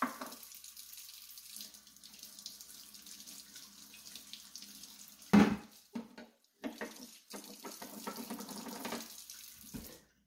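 Kitchen faucet running into the sink while a teacup of butter is held under the hot stream to loosen it, the water splashing and breaking up as hands move through it. A single loud knock comes about five seconds in, and the tap is shut off near the end.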